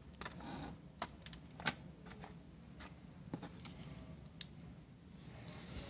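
Light plastic clicks and taps, about a dozen at uneven spacing, from the three-way push switch of a freshly repaired USB clamp-on LED ring lamp being pressed and the lamp being handled.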